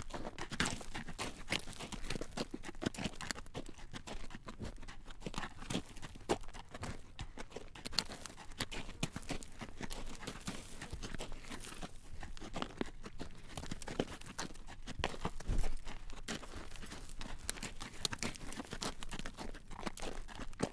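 Horse's hooves clip-clopping on a road at a walk as it draws a carriage, a steady stream of clacks.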